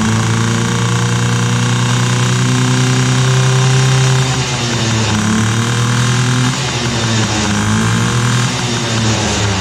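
The 2000 Yamaha PW50's small two-stroke single-cylinder engine running, its revs rising and falling several times.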